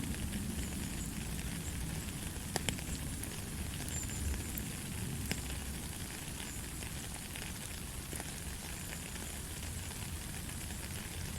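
Light, steady rain: an even hiss with a low rumble beneath it, and a few single drops ticking sharply now and then.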